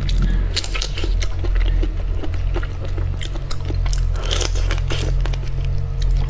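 Close-miked eating sounds: biting and chewing into a marinated butterflied prawn, with a run of wet clicks and crackles from the shell and flesh, over a steady low hum.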